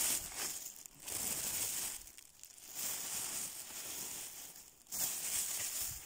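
Close rustling and crinkling in about four bursts of a second or so each: handling noise right at the microphone as things are moved over the forest floor.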